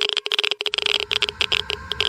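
Geiger-Müller counter clicking rapidly and irregularly, dozens of random clicks a second: a high count rate of ionizing particles. A faint steady whine joins in near the end.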